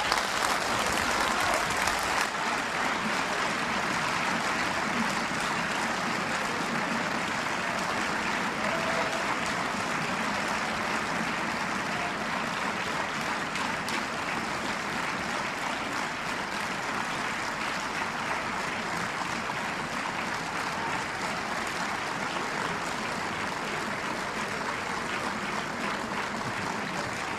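Sustained applause from a large crowd of members in a parliamentary chamber, loudest in the first couple of seconds and easing only slightly after.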